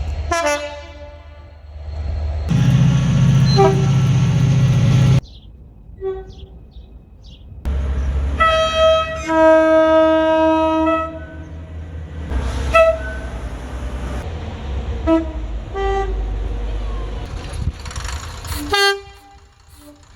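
A string of train horn blasts: several short toots and one long, steady horn blast about halfway through. Between the blasts the train's low rumble is heard, loudest for a few seconds near the start, with abrupt jumps in sound where separate recordings are joined.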